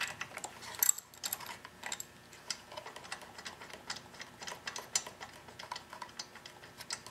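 Ratchet spark plug wrench clicking as it loosens and backs out a spark plug: a run of light, irregular ticks and clicks.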